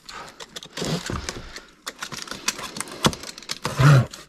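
Supplement boxes and packaging being handled and opened: an irregular run of clicks, rustles and light knocks, with a louder low-pitched sound near the end.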